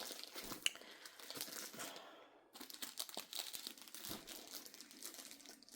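Packaging being handled and pulled at by hand, crinkling and crackling, with a short pause about two seconds in.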